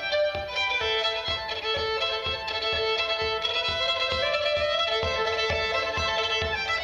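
Solo fiddle playing a brisk traditional Irish-Scottish dance tune in quick running bowed notes, over a steady low pulse.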